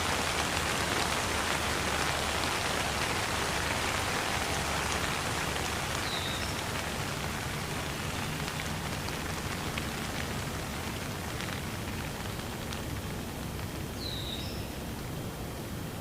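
Steady hiss of falling water, slowly fading. A bird gives a short chirp twice, about eight seconds apart.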